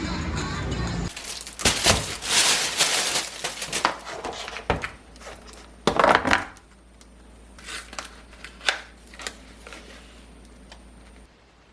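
Crinkling and crackling of food packaging being handled, in irregular sharp bursts that are loudest in the first half and thin out to a few light clicks near the end.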